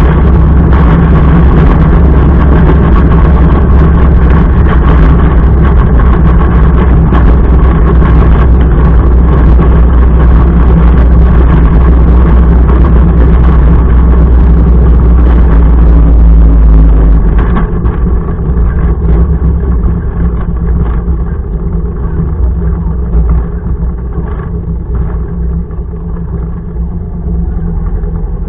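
Motorcycle engine running steadily while riding, a loud continuous deep drone. About two-thirds of the way through it gets quieter and its deep low tone thins out.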